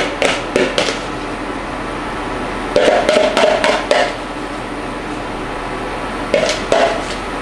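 A kitchen utensil scraping and tapping against a bowl as the last of the omelette batter is scraped out into the pan, in three short clusters of knocks and scrapes over a steady hiss.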